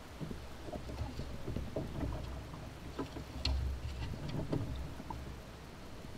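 A canoe being poled through a shallow rocky riffle: scattered knocks and clicks from the wooden pole striking stones and the hull, over the rush of running water. The sharpest knock comes about three and a half seconds in.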